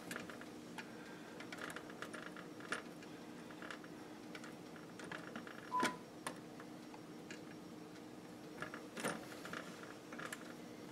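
Faint handling sounds of soft water-cooling tubing being worked onto a compression fitting: scattered small clicks and brief rubbing, with the sharpest clicks about six and nine seconds in, over a faint steady hum.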